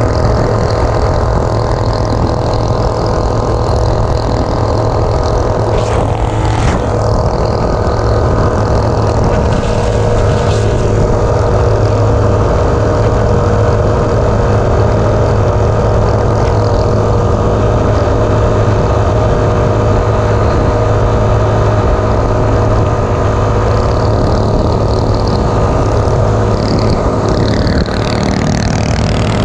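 Coleman CT200U minibike's single-cylinder engine, fitted with a power-up kit and RLV silencer, running steadily at cruising speed.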